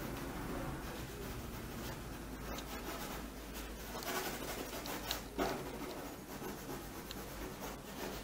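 Sketching strokes: a drawing tool scratching and rubbing across a large painting board in irregular short strokes, one stronger stroke about five seconds in.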